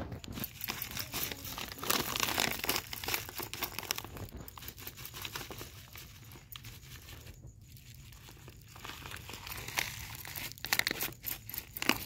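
Thin plastic packet crinkling and rustling as bone meal is shaken out of it onto a soil mix. The crackle is busiest in the first few seconds, thins out in the middle and picks up again near the end.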